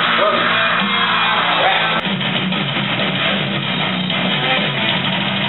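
Loud background music with guitar, with a short click and a brief dip about two seconds in where the edit cuts.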